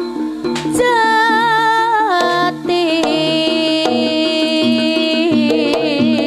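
Live jaranan music, the East Javanese accompaniment for a kuda lumping horse dance. A melody of long held notes, some with a wavering pitch, plays over drum strokes and steady ringing tones.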